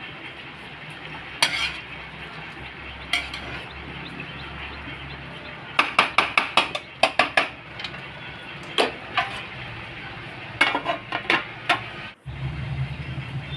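Metal spatula scraping and clanking against a metal kadhai while stirring shredded cabbage and potatoes: bursts of quick clinks, densest in the middle, over a low steady sizzle.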